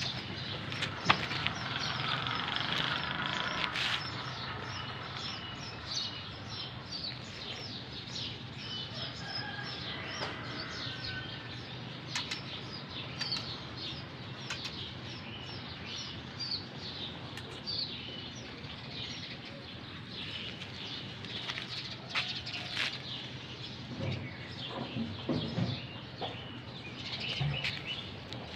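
Small birds chirping, many short calls throughout, with a few chicken clucks near the end.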